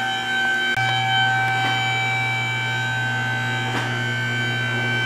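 Background music: held, droning chords that change about a second in.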